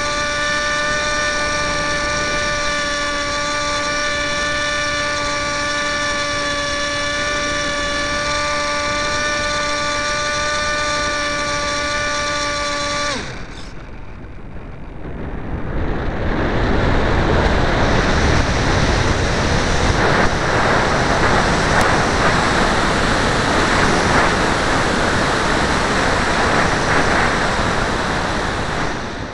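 Multiplex EasyStar RC model plane's electric motor and propeller running with a steady whine, heard through the onboard camera. The motor cuts off suddenly about halfway through, and the power-off glide down to land follows, with loud wind rushing over the camera's microphone.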